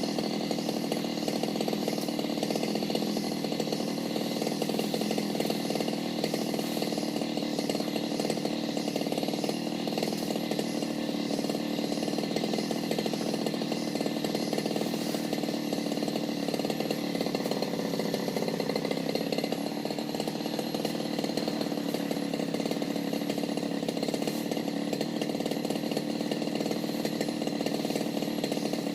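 Brush cutter (grass-cutting machine) engine running steadily.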